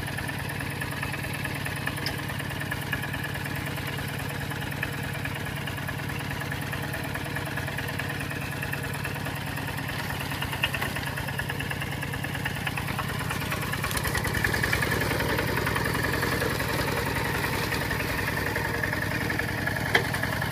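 Kubota RT120 single-cylinder horizontal diesel on a two-wheel walking tractor, running with a steady chugging beat; about fourteen seconds in its revs rise and it gets louder.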